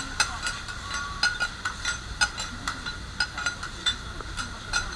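Metal spatulas clinking and scraping against a flat iron griddle in quick, irregular strokes as okonomiyaki is worked on the teppan.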